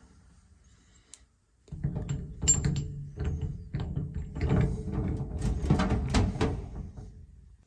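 Background music with percussion, starting about two seconds in.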